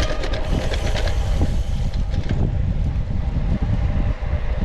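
Wind buffeting the microphone of a road bike moving at speed, with the steady rush of tyres on the road.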